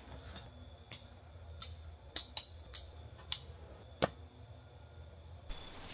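Chainsaw chaps being put on and buckled: a string of sharp, separate clicks from the plastic buckles and straps, the loudest about four seconds in, with a low steady rumble underneath that stops near the end.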